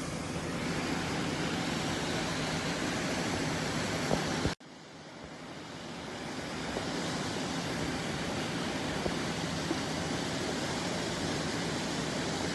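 Steady rush of a lahar, a volcanic mudflow of water, sand and stones, pouring down a rocky river channel. About four and a half seconds in the sound cuts out abruptly, then fades back up to the same steady rush.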